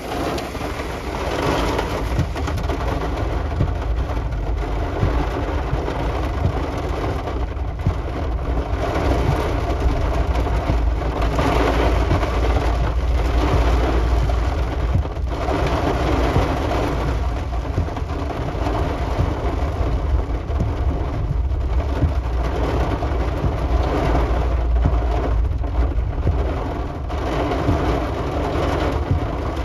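Thunderstorm with heavy rain and wind: a loud, steady wash of rain noise over a deep rumble, swelling and easing every few seconds.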